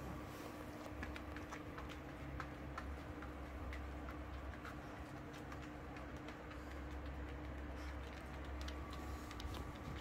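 A small dog's claws clicking irregularly on a hard floor, over a steady faint hum.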